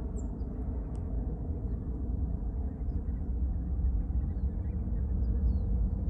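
Steady low rumble of motor traffic as sound pollution over open water, growing slightly louder towards the end, with a few faint short high chirps over it.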